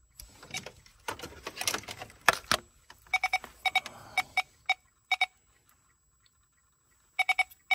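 Clicks and clatter of handling, then clusters of short electronic beeps, a few quick beeps at a time, sounding while a connector pin is being tested for a 5-volt supply.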